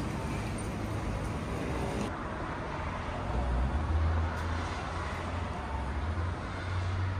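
Outdoor city-street ambience: a steady wash of noise with a low rumble that swells about halfway through and again near the end.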